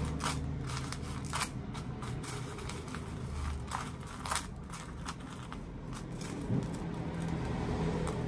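Dry, crumbled instant ramen noodles crackling and crunching as a raw chicken piece is pressed and rolled in them on a plate, in irregular crisp scrapes, over a steady low hum.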